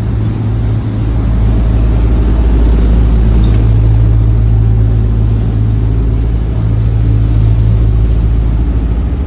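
An engine running steadily with a low drone, growing a little louder about a second in.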